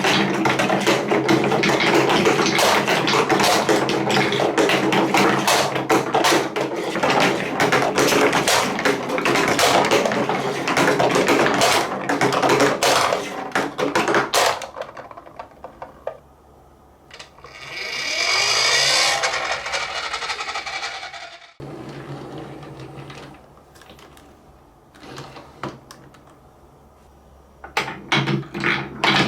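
Marbles rolling and clattering down plastic Trix Track wave-slope marble run pieces, a dense, fast rattle of clicks. About halfway it thins out, with a few seconds of smoother rolling noise and scattered clicks, then the dense clattering starts again near the end.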